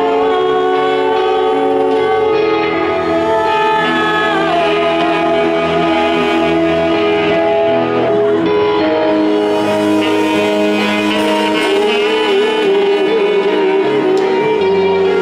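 Live rock band playing, a saxophone carrying held, sliding melody notes over electric guitars and bass.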